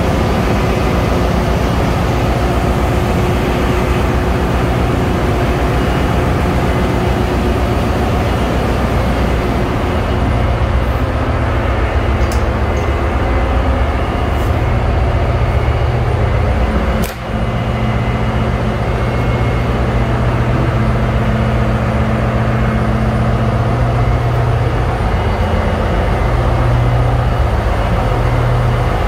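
Ship's engine-room machinery noise: a loud, steady drone with a low hum, heard from inside the scavenge air receiver of a MAN marine diesel engine, its hiss turning duller about a third of the way in. A short break in the drone comes just past halfway.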